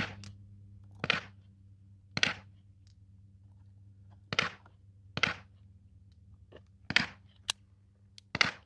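Metal clicks as brass revolver cartridges are dropped one at a time into the chambers of a Henry Big Boy revolver's swung-out cylinder, about a second apart. Near the end the cylinder is closed, with a quicker double click.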